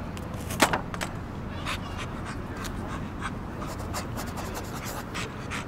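English bulldog panting in short, noisy breaths, about two a second and unevenly spaced, with a sharper click about half a second in, over a steady low background hum.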